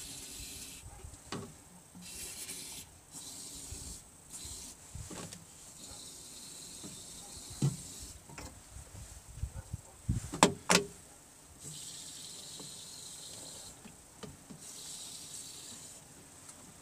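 Aerosol can of silicone lubricant sprayed in several short hissing bursts into a car door's window glass guide channels. A few sharp knocks about ten seconds in are the loudest sound.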